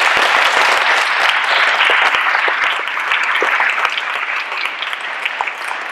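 An audience applauding, a dense run of clapping that slowly dies down over the last few seconds.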